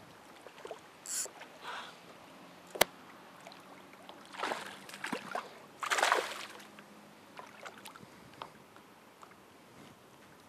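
A hooked largemouth bass splashing and thrashing at the surface beside the boat as it is landed by hand, in short bursts with the biggest splash about six seconds in. A single sharp click sounds a little before three seconds in.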